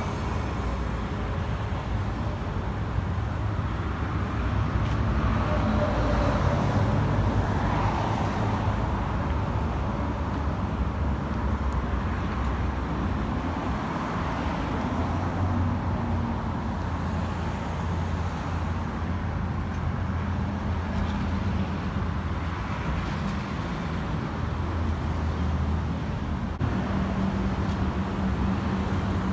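Steady rumble of road traffic, with the hum of passing vehicles swelling a little several seconds in.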